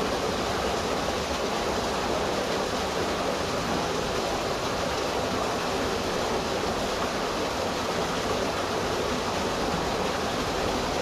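Steady rush of water in a flooded drainage ditch, with water pouring in from an outlet in the wall.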